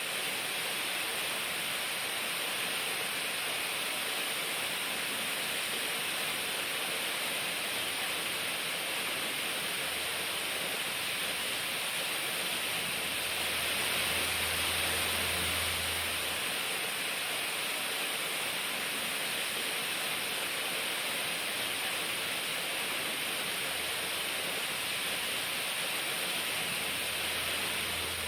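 Running water rushing steadily, an even hiss with no breaks, swelling slightly about halfway through.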